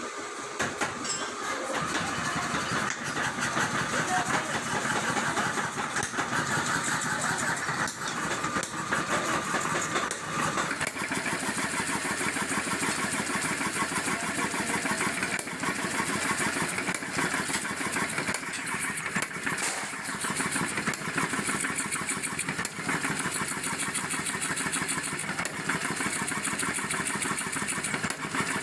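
Self-contained pneumatic power hammer running, its ram striking a steel bar on the die in a rapid, steady train of blows.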